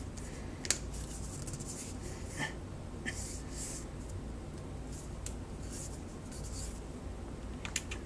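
Quiet fidgeting at a desk: soft rubbing of hands together and a few light, scattered clicks over a low steady hum.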